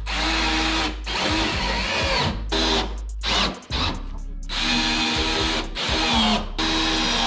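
Power drill driving self-tapping screws through the bench top into aluminium braces, in several short runs of about a second each with brief pauses between.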